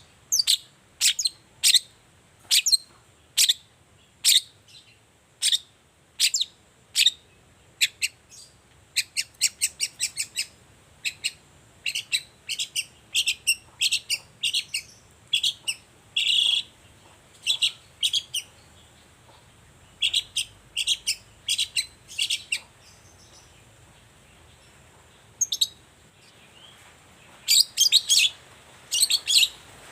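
Long-tailed shrike calling in short, sharp, high notes, about one or two a second, with a pause of a couple of seconds about two-thirds through and then a quicker run of notes near the end.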